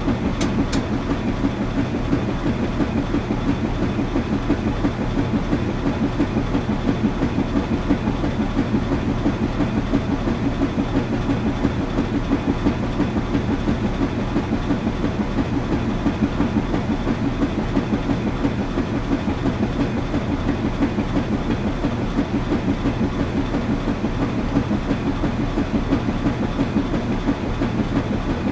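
Washing machine running steadily: a continuous low hum with a fast, even churning rattle.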